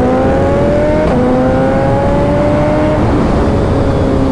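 Suzuki Hayabusa's inline-four through a Brock's Performance aftermarket exhaust, accelerating hard. The revs climb, drop with an upshift about a second in, climb again and drop with another upshift near three seconds, over heavy wind rush on the rider's microphone.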